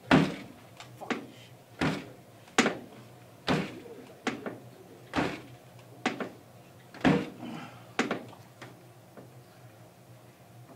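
Repeated bangs on a door, a dozen or so sharp knocks roughly one a second, each ringing briefly, dying out near the end.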